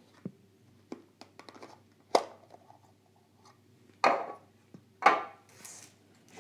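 A small diecast model and its plastic packaging being handled by hand: light clicks and taps, then three louder short scraping rustles about a second apart.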